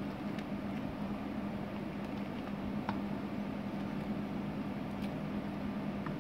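Steady mechanical hum with a constant low tone, and a few faint ticks as a wooden spoon stirs chopped watermelon rind in a stainless steel pot.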